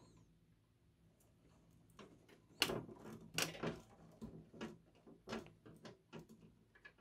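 Plastic SATA connectors and cables clicking and rattling as they are handled and plugged into a hard drive inside a desktop PC case. The light knocks begin about two and a half seconds in and come irregularly.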